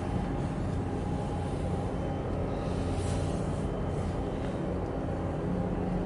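Steady low drone of a large container ship's machinery as it passes close by, a rumble with a few held hum tones in it.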